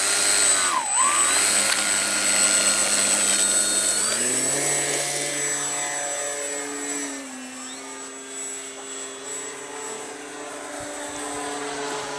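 Electric brushless motor and propeller of an E-flite T-28 Trojan 1.1 m RC airplane on a 4S battery, whining at high throttle. The pitch dips briefly about a second in, drops again around four seconds in, and the sound slowly fades as the plane flies off.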